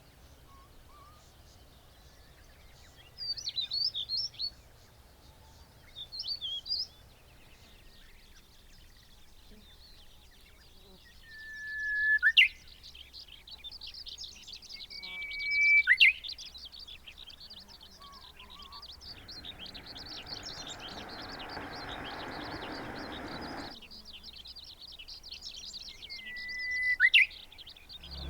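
Birds singing: three times, a held whistle swells in loudness and breaks into a quick upward flourish. Shorter chattering calls and faint high twittering from other birds are heard between them.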